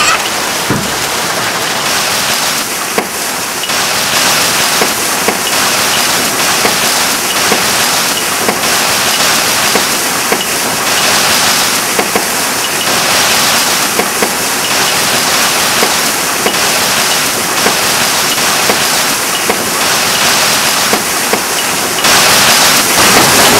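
Hailstorm with heavy rain: a steady hiss of falling rain dotted with the sharp ticks of hailstones striking, a little louder near the end.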